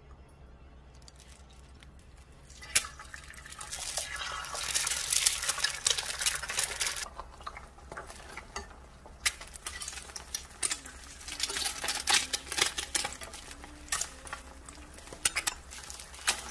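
Eggs frying in a square stainless steel pan: a sharp click a few seconds in, then sizzling, then a metal turner repeatedly scraping and clicking against the pan as the eggs are pressed and turned.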